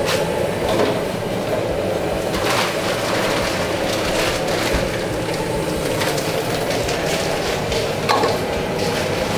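Steady rushing kitchen noise, with a few knocks and clatters of pots and utensils, one about two and a half seconds in and another near the end.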